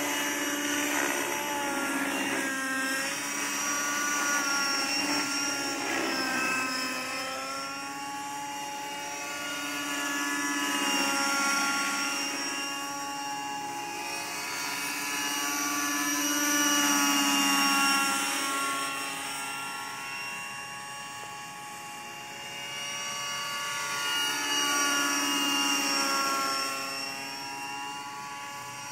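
Align T-Rex 600 radio-controlled helicopter in flight: a whine from its rotor and drive that glides up and down in pitch and swells louder and fades several times as it flies back and forth.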